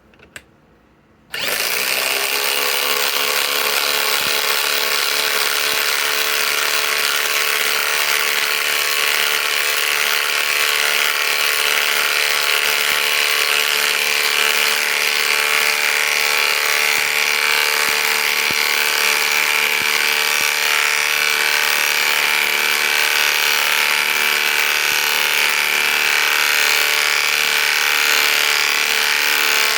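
RIDGID 250 ft-lb subcompact impact wrench hammering steadily as it drives a long 8- to 10-inch lag screw into wood. It starts about a second and a half in and runs without a break.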